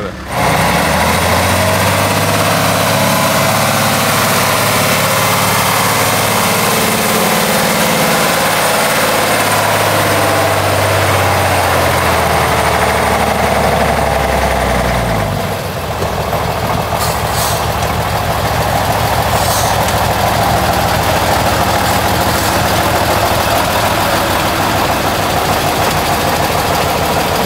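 Heavy old off-road truck's engine running hard under load on a steep muddy climb. About halfway through the revs drop, and the engine runs on at a lower, rougher pulse.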